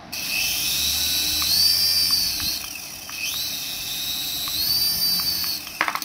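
Small toy RC helicopter's electric rotor motors whirring as it is held in the hand, with a high whine that speeds up and slows down twice. A few sharp clicks come near the end.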